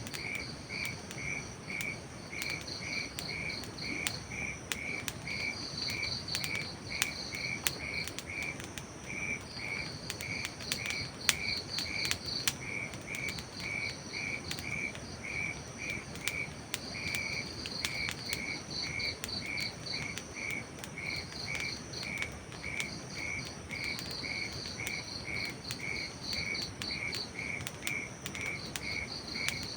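Crickets chirping steadily, about two to three chirps a second, with a second insect calling higher in short bursts of rapid pulses. Sharp pops and crackles from a campfire are scattered through, over a soft steady hiss.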